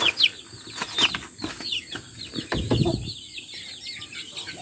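Chicks peeping over and over in short, high, falling peeps, with a brief flapping scuffle about two and a half seconds in.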